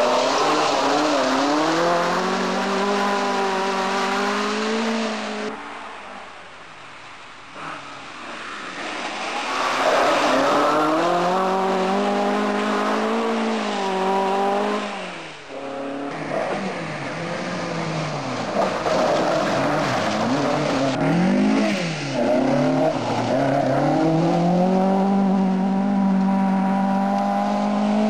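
Talbot Sunbeam rally car's Vauxhall 16-valve four-cylinder engine driven hard, its revs climbing and dropping again and again through gear changes. The sound drops away for a few seconds about six seconds in, and it holds a long steady high-rev pull near the end.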